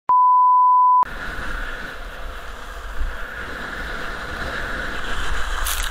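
A loud single-pitch beep lasting about a second, then the steady rushing of wind buffeting an action camera's microphone at skiing speed, deep in rumble, with the hiss of skis sliding over snow.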